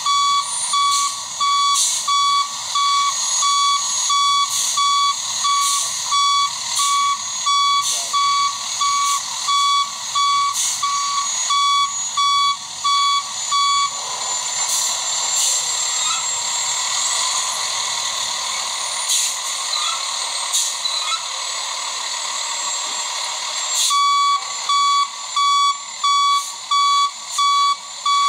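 A delivery truck's reversing alarm beeping steadily at one pitch, a little more than once a second. It stops for about ten seconds in the middle, while a steady hiss with a faint high whistle carries on, then starts again.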